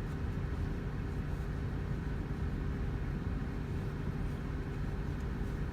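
Tractor engine running steadily, a constant low drone with an even hum.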